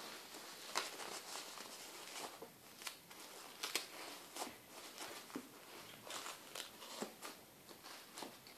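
Disposable diaper rustling and crinkling as it is handled and fastened, with irregular small clicks and soft rustles.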